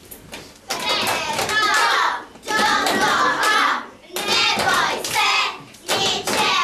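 A group of children shouting and cheering in repeated bursts of about a second and a half, with hand clapping mixed in, cheering on an arm-wrestling match.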